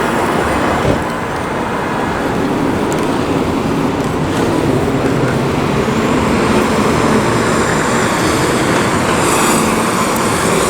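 Steady city street traffic noise: a continuous wash of passing vehicles.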